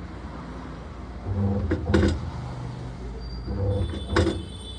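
Samsung top-load washing machine's motor agitating the wash, swelling into two spells of humming about two seconds apart as it turns one way and then the other. The motor turns freely here, though the machine has a complaint of sometimes not rotating.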